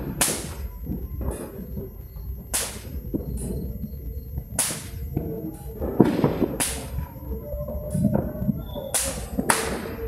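Fireworks and firecrackers going off in an irregular series of sharp cracks, about one a second, over a low rumble.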